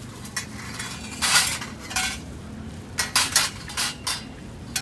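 Thin plastic bag crinkling and rustling in short, irregular bursts as it is handled, over a low background hum.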